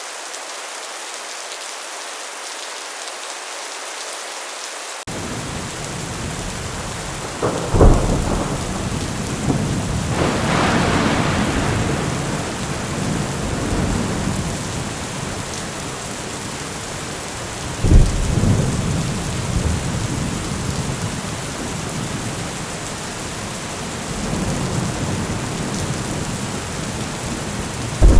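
Heavy rain falling steadily; about five seconds in, deep thunder rumbling joins it, with sharp thunderclaps about eight and eighteen seconds in, a long rolling peal between them, and another clap right at the end.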